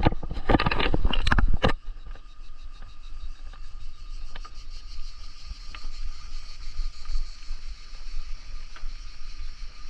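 A bicycle ride heard from the bike: wind and rolling noise on the microphone, with a loud burst of rustling in the first second and a half, then a steadier hiss with a few light clicks.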